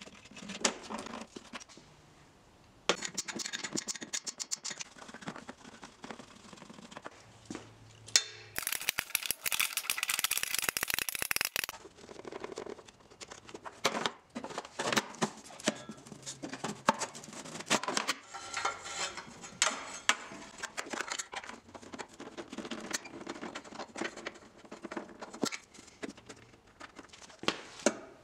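Ratchet wrench with a 13 mm socket clicking in short runs as the exhaust heat shield bolts are loosened, with a long fast run of clicks about nine seconds in. In between, the thin sheet-metal heat shield scrapes and rattles as it is handled and pulled down.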